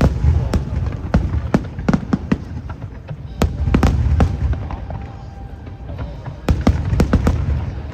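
Fireworks display: rapid sharp bangs of bursting shells in irregular clusters, over a steady low rumble.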